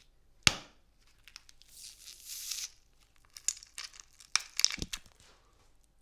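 Passion fruit being smashed and squished close to the microphone for gore sound effects: a sharp hit about half a second in, a wet tearing squish around two seconds, then a cluster of cracks and knocks near the end.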